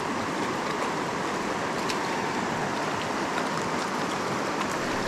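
Steady rush of fast-flowing river current, with a few faint clicks on top.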